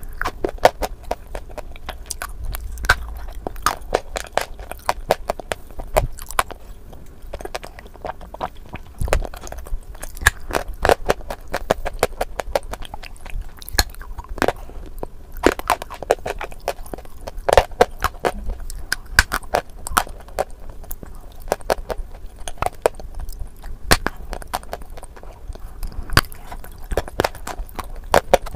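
A person biting and chewing chunks of dry clay dipped in wet clay paste, close to the microphone: a dense, irregular run of sharp crunches and cracks.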